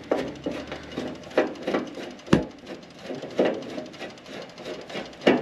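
Irregular clicks and knocks of a screwdriver working on a dryer's metal control panel as a Phillips screw is backed out. There is a sharper knock about two seconds in.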